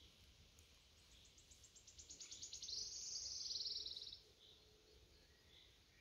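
A small songbird singing once: a run of high, thin notes that speeds up into a fast trill, lasting about three seconds and starting about a second in.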